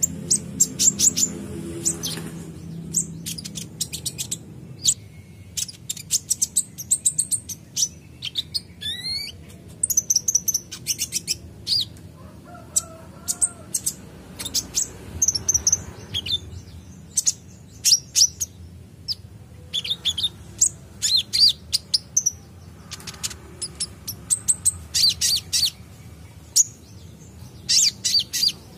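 Male kolibri ninja sunbird singing: repeated rapid clusters of thin, high-pitched chirps and twitters every second or two, with a quick rising whistle about nine seconds in.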